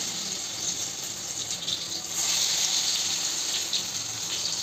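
Hot oil sizzling with a steady hiss and faint crackles as batter-coated pumpkin flower pakoras deep-fry in a kadhai. The sizzle grows louder about halfway through.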